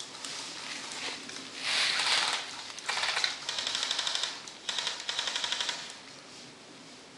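Airsoft guns firing in full-auto bursts: rapid clicking shots in several bursts, the last two lasting about a second each, then the firing stops.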